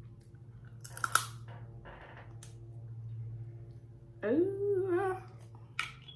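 Close-up eating sounds of someone eating snow crab. There is a sharp mouth click with a puff of air about a second in and a soft breath, then a hummed "mmm" about four seconds in and a short wet smack near the end, over a low steady hum.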